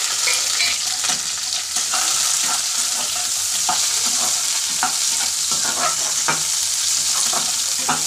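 Sliced onions sizzling in hot oil in a metal kadhai, frying lightly with cumin, garlic and dried chilli. A steel spatula scrapes and clinks against the pan in short irregular strokes as they are stirred.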